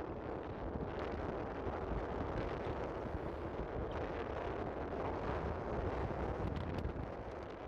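A wadi flash flood: fast floodwater rushing with a steady roar, and wind buffeting the microphone.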